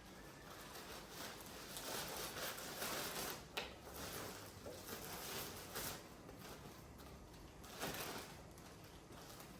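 Faint rustling and crinkling of clothes and plastic packaging being handled as parcels are unpacked, in uneven swells, with a couple of sharp clicks.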